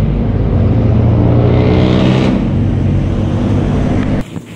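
A motor vehicle's engine running close by, its pitch shifting about two seconds in; the sound cuts off abruptly about four seconds in.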